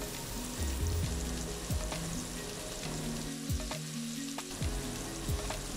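Sliced onions and tomato sizzling in hot coconut oil in an aluminium pressure cooker: a steady frying hiss with small crackles.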